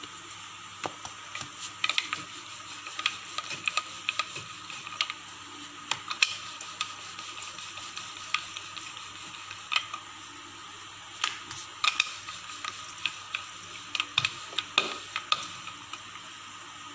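Rolling pin rolling out naan dough on a round wooden board, giving irregular clicks and knocks as the pin rolls and taps on the board, over a steady background hum.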